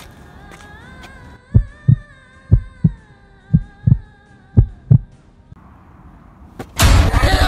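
Heartbeat sound effect: four double 'lub-dub' thumps about a second apart, deep and heavy, over a faint held tone. Near the end a loud, noisy sound cuts in abruptly.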